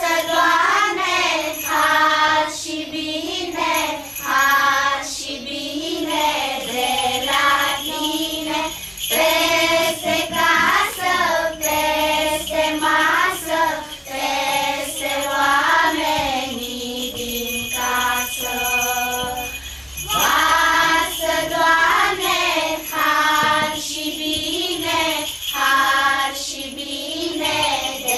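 Children's choir singing a Romanian Christmas carol (colind) in unison, with small bells jingling along.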